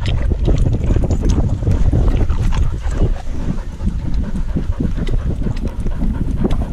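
Wind buffeting the microphone of a camera strapped to a running husky, a loud uneven rumble as the mount jostles, with scattered light clicks through it.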